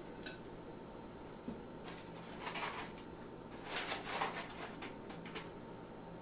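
Faint kitchen handling sounds as fried chicken is moved between a stovetop pot and a plate: a few soft clicks, and two short rustling, scraping noises about two and a half and four seconds in.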